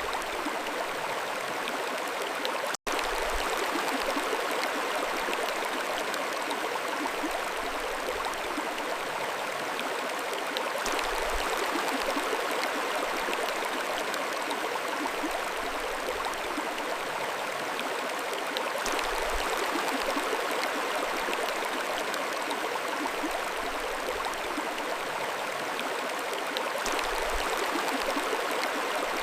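Mountain stream flowing, a steady rush of water, with a split-second gap in the audio about three seconds in.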